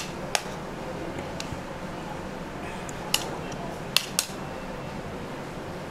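A metal spoon clinking against a plate about five times, over a steady low hiss, as grated vegetables are scraped off the plate into a bowl.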